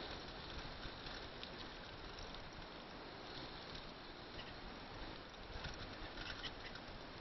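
Steady road noise from a vehicle travelling over a rough, rutted dirt road, with light rattles and ticks that grow more frequent near the end.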